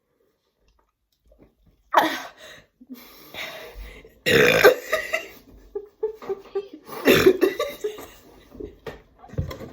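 People burping after chugging carbonated Sprite: a run of loud burps that starts about two seconds in, with the biggest ones around the middle and a last short one near the end.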